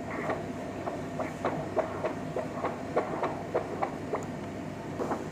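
Echo machine's Doppler audio: pulsing whooshes of blood flow across the mitral valve, two to each heartbeat, repeating a little under twice a second. The flow is being sampled to measure the mitral gradient after balloon mitral valvotomy.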